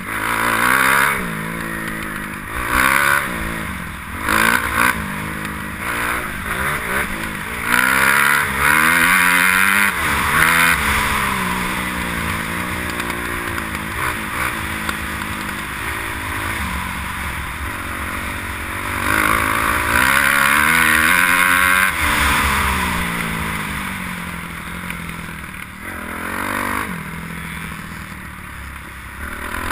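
Kawasaki motocross bike's single-cylinder engine, heard from the rider's helmet, revving up and dropping back again and again as it is ridden round the track. Stretches of loud rushing noise lie over the engine at times.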